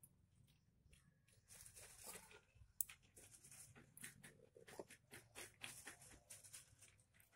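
Faint handling noise: a string of small clicks and ticks with soft rustling as hands work small metal fishing hooks and line. One sharper click comes just under three seconds in.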